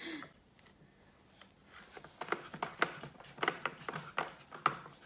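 A butter knife clicking and scraping against a peanut butter jar while scooping out peanut butter: a quick, irregular run of clicks and scrapes starting about two seconds in.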